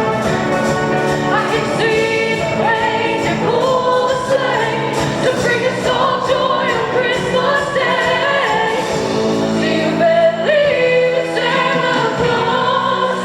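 Choir singing with musical accompaniment.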